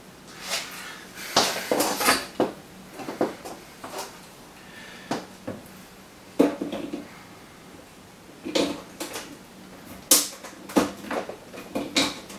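Irregular knocks, clicks and rattles of hands handling a 3 kW pure sine wave inverter's casing, in clusters about two seconds in, around six seconds in, and from about eight seconds on, over a faint steady low hum.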